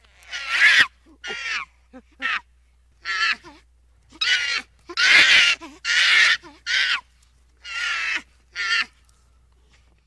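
A series of about ten high-pitched animal calls, each under a second long, coming at uneven intervals.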